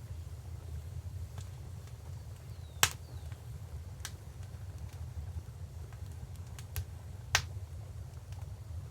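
Wood fire crackling with a few sharp, isolated pops, the loudest about three seconds in and another near seven and a half seconds, over a steady low rumble of river water.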